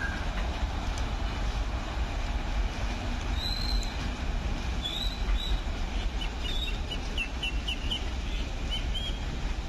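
Low, steady rumble of a distant locomotive approaching slowly, with the last of a horn note at the very start. Birds chirp over it, in short high calls through the second half.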